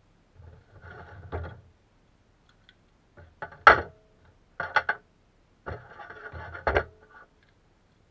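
Cardboard box and packaging being handled during unpacking: four bursts of rustling and scraping, each with a sharp knock, the loudest a little under four seconds in.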